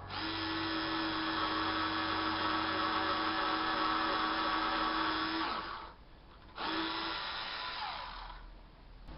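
Small cordless electric screwdriver of the revolver type with a bit magazine, fitted with a drill bit, its motor running in a steady whine for about five and a half seconds and winding down. After a brief pause it runs again for about a second and winds down.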